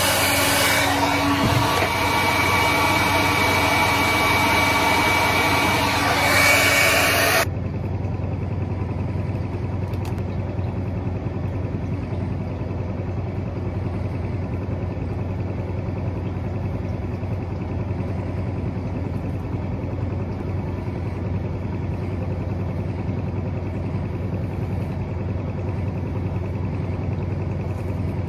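Hand-held hair dryer blowing, cutting off abruptly about seven seconds in. A steady low hum continues after it.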